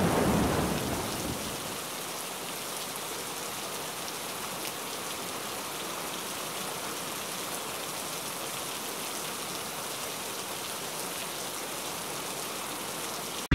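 Steady rain falling on a wet concrete driveway, an even hiss. A louder low rumble fades out over the first second or two.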